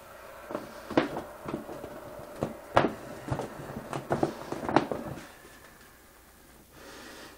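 Objects being handled by gloved hands: a string of knocks, clicks and light rustles, three sharper knocks among them, settling down after about five seconds, with a brief hiss near the end.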